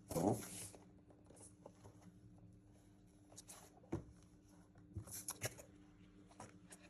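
Packaging being handled during a keyboard unboxing: a short rustling scrape right at the start, then a few scattered light taps and knocks, over a faint steady hum.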